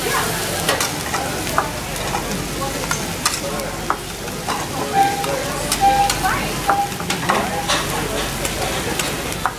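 Vegetables and rice sizzling on a teppanyaki steel griddle while metal spatulas stir and toss them, with many sharp clicks and scrapes of spatula on the hot plate over a steady frying hiss.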